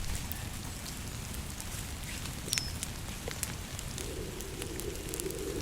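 Campfire crackling: scattered sharp pops and ticks over a steady hiss. About four seconds in, a low rushing noise joins it.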